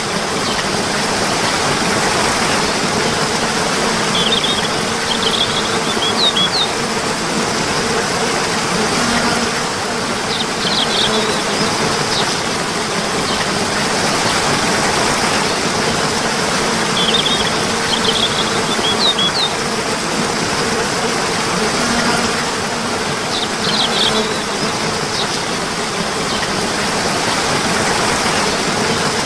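Steady rush of flowing water, with short bursts of bird chirps recurring every several seconds.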